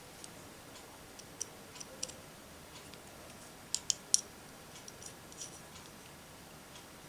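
Light, sharp clicks and taps from a small HDMI-to-USB capture device being handled, the loudest three in quick succession about four seconds in.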